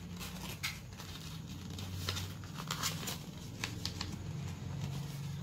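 Paper rustling and crinkling as a sheet of black paper is folded and creased by hand, with short crisp crackles every second or so. A low steady hum runs underneath.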